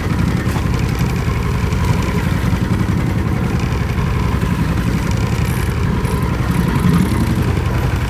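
Boat's outboard motor running steadily at idle.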